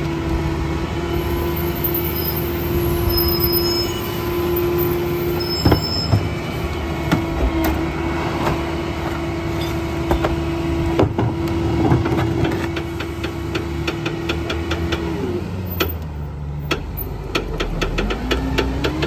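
Mack rear-loader garbage truck running at a steady raised idle with a steady whine, while trash bags and a cart load thud into the rear hopper a few times. Near the end the whine drops away, a run of quick ticks sounds, and the engine revs up again as the truck pulls off.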